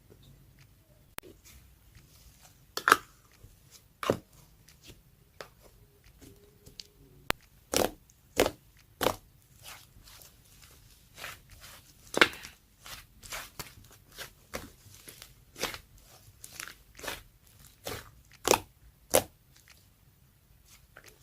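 Slime being pressed and squeezed by hand, giving off irregular sharp clicks and pops about once or twice a second.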